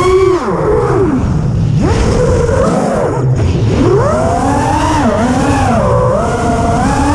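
Drone's electric motors whining, their pitch swooping up and down as the throttle changes. The pitch drops low about two seconds in and again around three seconds, then climbs back.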